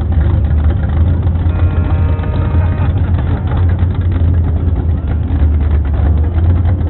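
Steady low rumble of a vehicle engine running as a parade float goes by. A held pitched note sounds briefly, about a second and a half in, for just over a second.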